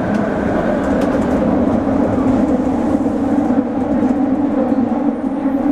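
Fukuoka City Subway train running through a tunnel, heard from inside the car: a loud, steady rumble.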